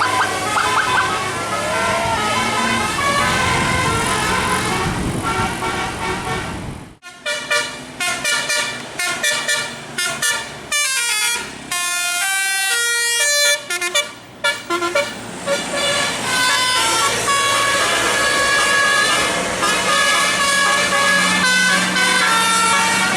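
Indonesian bus 'telolet' multi-tone air horn playing a tune of quick stepped notes over a noisy background. About seven seconds in, the background drops away and the horn notes sound alone and clear in falling and rising runs for several seconds, then the dense sound returns.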